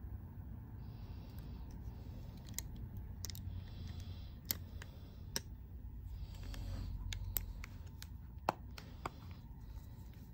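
Small sharp clicks and short bouts of light scraping as an iPhone 12 Pro Max's display is handled and fitted back onto the phone's frame, the loudest click about eight seconds in.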